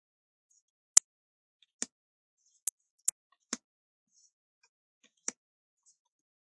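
Gita deck cards handled one at a time off a stack: a series of about six sharp card snaps and taps with quiet between, the loudest about a second in.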